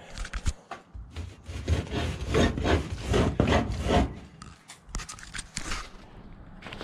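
Close-up scraping and rubbing against the sawdust-covered steel trough of an old chain conveyor, with scattered knocks. It is loudest and densest from about one to four seconds in, then eases to lighter rubbing.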